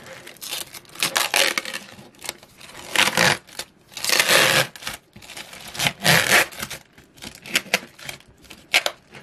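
Thin plastic protective film being peeled off the face of an LED tracing light pad and crinkled in the hands: a string of irregular crackling rustles, loudest about four seconds in.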